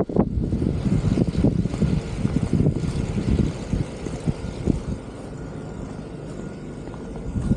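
Outdoor street noise in a snowstorm: traffic rumble with gusty wind on the microphone, easing about five seconds in.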